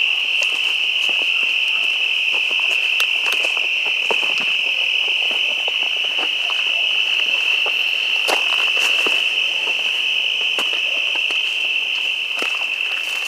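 Night chorus of crickets: a steady, shrill, high-pitched trilling without pause. Over it come footsteps crunching and clicking irregularly on loose rocks and dry grass as someone walks a stony trail.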